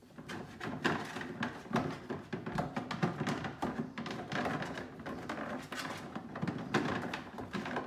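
Small plastic toy dishes and utensils clattering and knocking together as they are handled in a toy kitchen sink, a busy irregular run of light clicks and knocks.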